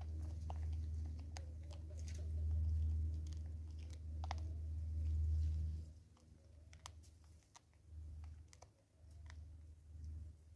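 Vervet monkey feeding at a plastic bottle seed feeder: quick clicks and crunches as it picks through and chews the seed. Under it runs a low rumble that drops away about six seconds in and then comes and goes.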